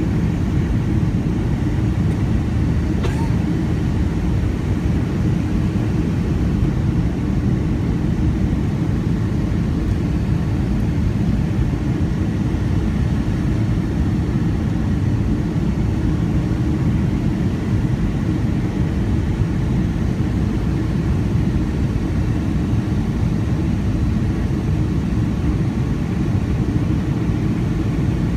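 Steady low rumble of engine and airflow noise inside a Boeing 757-200's cabin, heard from a window seat over the wing as the jet descends on approach.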